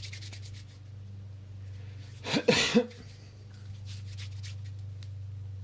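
A person gives one short cough about halfway through, over a steady low hum and some light rustling.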